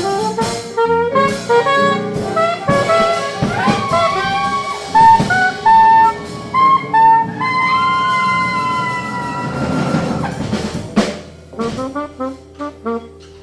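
Live jazz combo of alto saxophone, trumpet, bass trumpet, piano, bass and drums playing a jazz standard, the horns holding long notes. A cymbal swell builds to a crash about eleven seconds in, after which the playing thins out to a few scattered notes.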